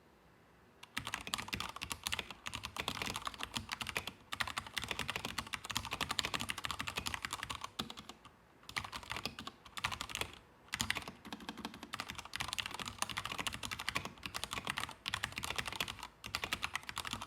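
Stock Akko 3068 mechanical keyboard being typed on fast, a dense stream of keystroke clacks in runs with brief pauses, starting about a second in.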